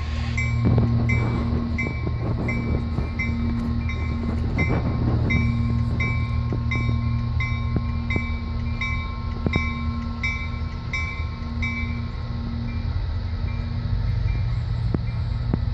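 EMD SD40-2 diesel locomotive, its 16-cylinder two-stroke engine running with a steady low hum as it rolls slowly through the yard. Its bell rings steadily about twice a second, and there are a few sharp clicks from the wheels on the rails.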